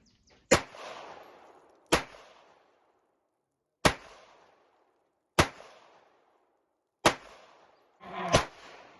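Six slow, deliberate shots from a Mauser HSc semi-automatic pistol, fired at irregular intervals of about one and a half to two seconds. Each shot is a sharp crack followed by a decaying echo.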